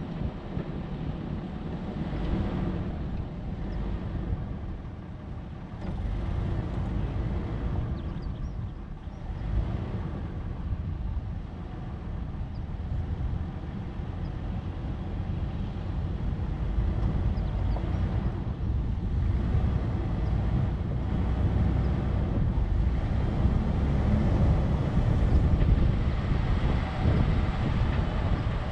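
A 4x4 vehicle driving on a dirt trail: steady engine and tyre rumble that rises and falls, growing a little louder near the end.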